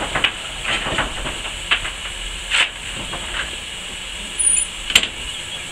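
Steam locomotive No. 403 standing at rest, hissing steam steadily with short, irregular bursts of louder hiss. A brief high squeak comes about four and a half seconds in, followed by a sharp click.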